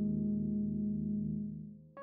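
Background music: a sustained keyboard chord with a slight waver, fading out near the end.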